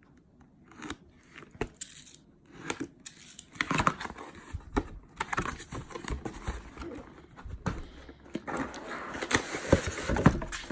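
A cardboard product box being opened and its packing handled and pulled out: irregular scrapes, crinkles and knocks, busier in the second half.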